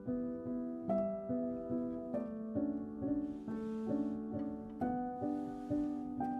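Gentle instrumental background music, a steady run of short picked notes forming a calm melody.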